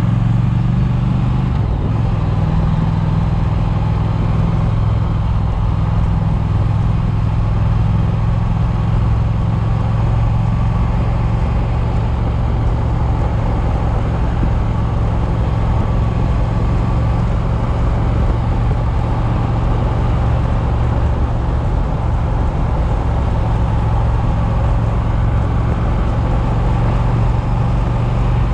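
Triumph motorcycle engine running steadily at road speed, with wind noise over the microphone of the rider's chest-mounted camera. The engine note drops slightly about two seconds in.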